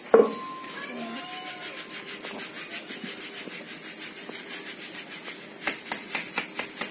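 A sharp knock with a short metallic ring just after the start. Then comes the patter of a round hand sieve being shaken and tapped as pounded rice flour is sifted: light, even taps, several a second, growing louder near the end.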